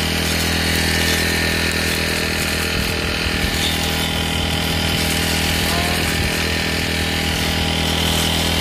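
Brush cutter engine running steadily at low RPM while its freshly sharpened blade cuts through weeds, with a few brief rough patches as the blade bites into the growth.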